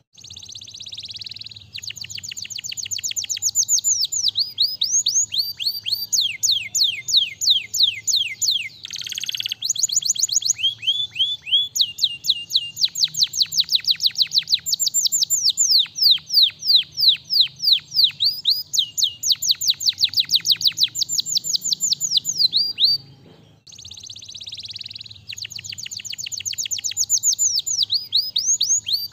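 Domestic canary singing a long, loud song of rapid trills. Each trill is a fast series of quick falling notes, and the song rolls from one trill type to the next with a short break about three-quarters of the way through.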